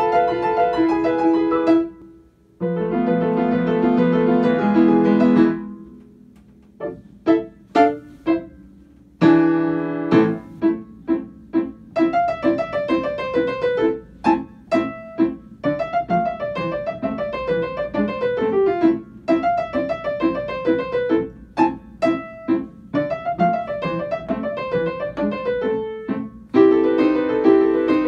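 Solo piano played by a child: held chords at first, then short detached notes, then quick running passages with brief pauses, and full chords again near the end.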